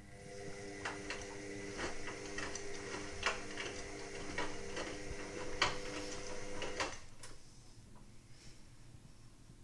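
Indesit WIXL143 washing machine making its fault noise: a steady hum with irregular sharp clicks, about two a second, which cut off suddenly after about seven seconds. This is the clicking the owner reports when the machine starts a cycle it then fails to finish.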